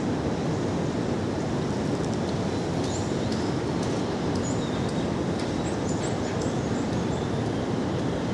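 Steady low outdoor background rumble, with a few short, high bird chirps in the middle.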